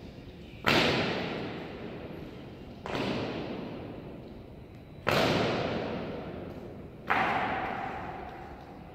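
Honor guard drill during a changing of the guard: four sharp strikes about two seconds apart, each ringing out in a long echo.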